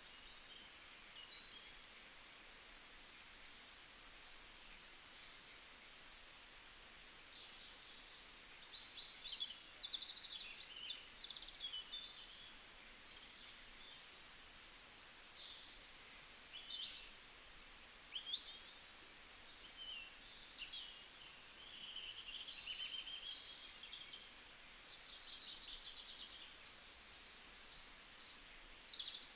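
Small birds chirping and singing, many short high chirps and trills overlapping one another, over a faint outdoor hiss.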